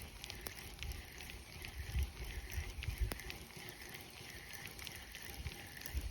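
Outdoor ambience by a pond: a steady pulsing chirr repeating two or three times a second, with a few sharp clicks and low rumbling thumps on the microphone, strongest about two and three seconds in.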